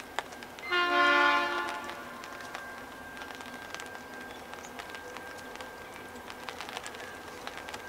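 Diesel locomotive horn sounding one blast of about a second, from a grain train approaching but not yet in view.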